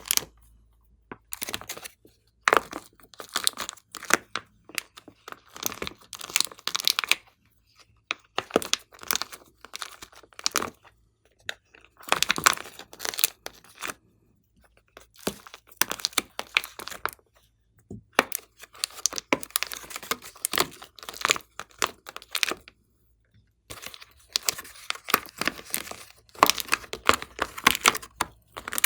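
Glossy slime being squished, stretched and pressed by hand, giving sticky crackling and popping in bursts of a second or two with short pauses between.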